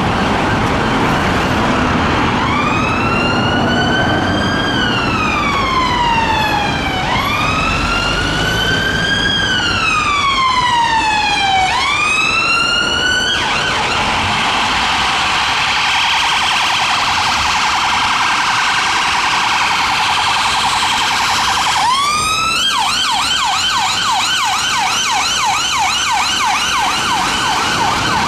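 An ambulance command support vehicle's electronic siren, changing modes as it drives: a slow wail rising and falling, quickening to short sweeps, then a fast buzzing warble from about halfway, and near the end a quick rise into a rapid yelp of about three sweeps a second. Traffic noise runs underneath.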